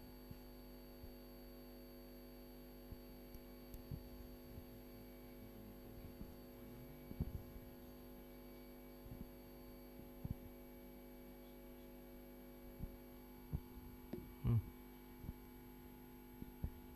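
Steady electrical mains hum with several faint tones. A few short, faint low knocks come and go, the loudest about fourteen and a half seconds in.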